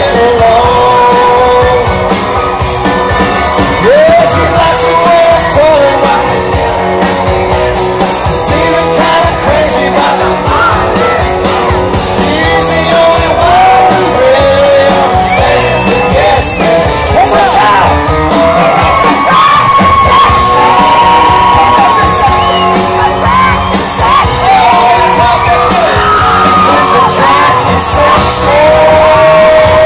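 Live country band playing with lead singing. Fans close by yell and sing along, in a large hall's echo.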